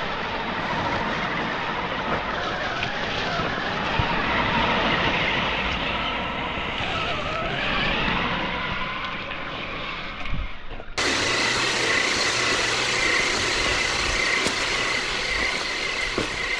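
Radio-controlled crawler truck driving: electric motor and gear whine rising and falling with the throttle. About eleven seconds in the sound cuts abruptly to another take, where a steady high whine runs on.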